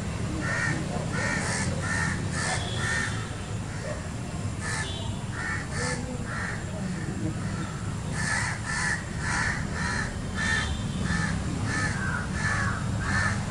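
Repeated short, harsh bird calls, about two or three a second in runs, over a steady low rumble.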